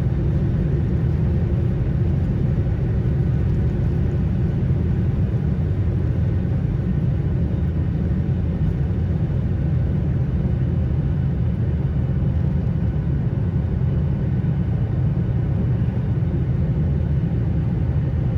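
Cabin noise aboard a Boeing 737-800 in its takeoff climb: a steady low rumble from the CFM56-7B engines at high thrust, mixed with airflow noise.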